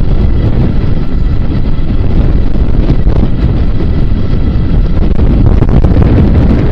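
Wind buffeting the microphone of a camera on a moving bike: a loud, steady, low rush with no breaks.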